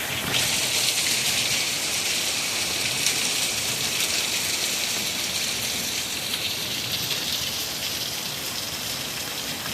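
Heavy rain from a severe thunderstorm pouring down as a steady, even hiss, picking up suddenly just after the start.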